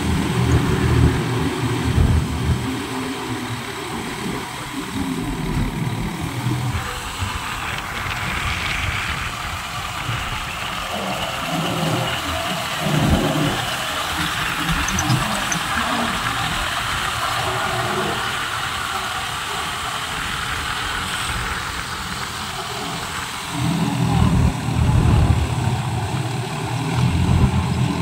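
John Deere tractor's diesel engine running steadily under load while driving a rotary tiller through flooded paddy mud, with a hiss of churned water and mud. The engine is loudest at the start and again near the end.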